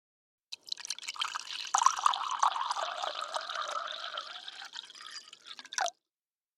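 Water splashing and trickling, a dense run of small drips and gurgles lasting about five seconds, starting and stopping abruptly.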